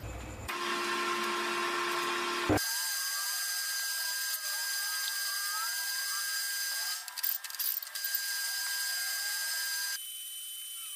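Manual metal lathe running, a steady mechanical whine. The tone changes abruptly about two and a half seconds in to a higher whine and drops quieter near the end.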